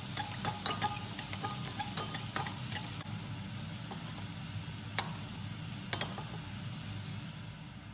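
Metal spoon stirring a sauce in a ceramic bowl, clinking against the sides: a run of light clinks over the first two seconds or so, then two sharper single clinks later, over a steady low hum.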